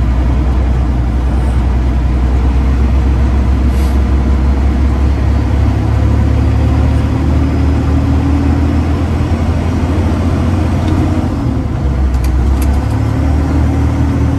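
Freightliner Classic XL semi truck running in traffic, heard from inside the cab as a loud, steady low drone with a faint whine that climbs slightly around the middle.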